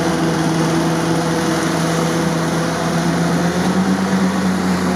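UAZ 469's four-cylinder petrol engine running steadily at a raised idle. The pitch climbs a little about three and a half seconds in. The throttle is hanging open, which the men put down to a stuck choke or a bent throttle linkage.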